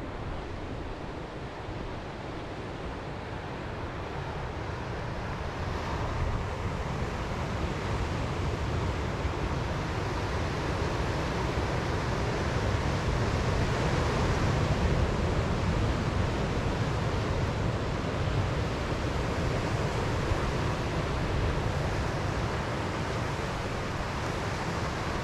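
Ocean surf breaking and washing onto a rocky sandy beach, a steady rush that swells louder about six seconds in and again around the middle. Wind buffets the microphone with a low rumble underneath.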